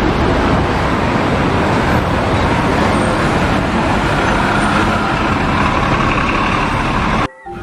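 Bus engine running amid road traffic noise, steady and loud, cutting off suddenly near the end.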